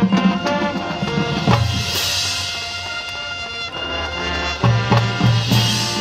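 High school marching band playing its competition show: held chords over percussion, with heavy low drum hits about a second and a half in and a quick run of them near the end, and bright crashes on top.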